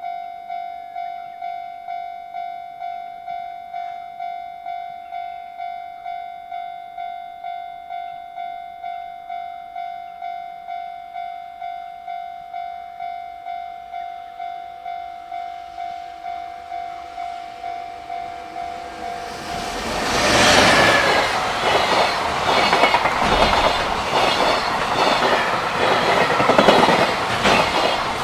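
Level-crossing warning bell ringing in a steady electronic ding-ding, just under two strikes a second. About twenty seconds in, a freight train arrives and passes loudly, covering the bell, with rhythmic clatter of wagon wheels over the rail joints.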